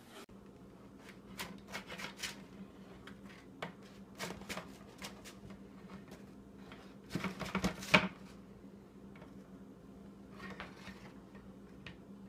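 Spatula scraping across a metal baking sheet and cookies being set down on a wire cooling rack: scattered light scrapes and clicks, with a louder clatter of several knocks about seven to eight seconds in. A faint steady hum runs underneath.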